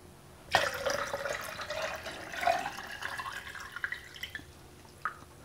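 Water poured from a plastic tub into a 3D-printed plastic mold form, splashing as it fills. The pour starts suddenly about half a second in and tails off near the end, followed by a single drip.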